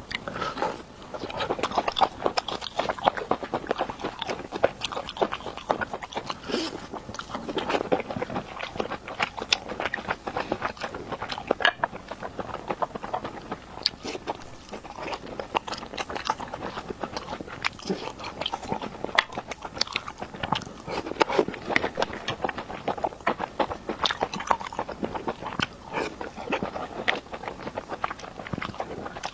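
A person eating close to the microphone, biting and chewing continuously, with a dense run of wet mouth clicks and smacks.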